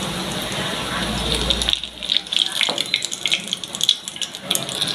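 Hot oil sizzling and crackling in the wells of a paniyaram pan as the fried egg paniyarams are lifted out. The sizzle turns into a sharper, spikier crackle a little under two seconds in.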